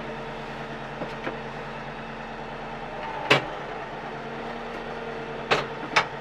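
Compact tractor engine idling steadily, with a few sharp knocks or clunks: two faint ones about a second in, a loud one about three seconds in, and two more near the end.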